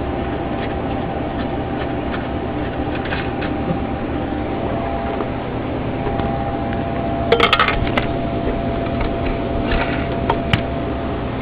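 Light clattering and clinking of hard objects being handled, a short cluster about seven seconds in and a few single clicks near the end, over a steady background hum and hiss.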